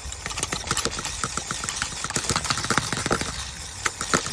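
Aerosol can of penetrating spray hissing and sputtering in rapid spits and crackles as it is sprayed: the can is spraying poorly.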